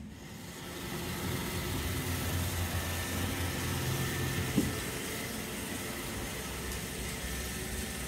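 Roomba robot vacuum running: a steady motor hum and whir, with a single sharp knock about four and a half seconds in.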